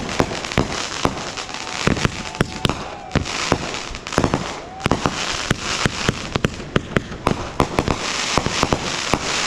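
Aerial fireworks going off: a dense run of sharp bangs and crackling pops, many a second, over a steady hiss.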